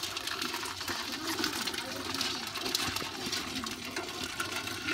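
Water splashing and running, with many small clicks and clatters throughout.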